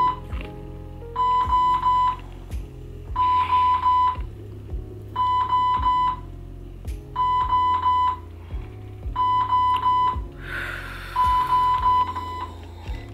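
Hospital bedside equipment alarm beeping: a short run of high, even beeps repeating about every two seconds, over a low steady hum of machines.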